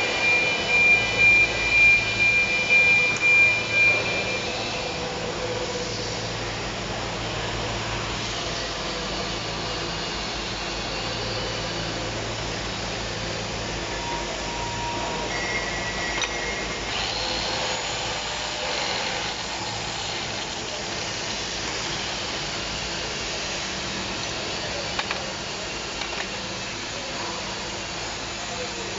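TIG welding arc hissing steadily. In the first four seconds a high whine rides on the hiss and the level swells five or six times.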